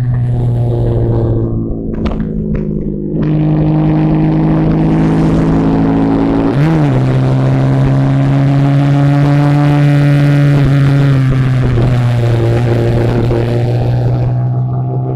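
Bajaj Pulsar RS 200's single-cylinder engine running steadily under way. The revs dip about two seconds in, and there is a quick blip up and down of the revs about six and a half seconds in.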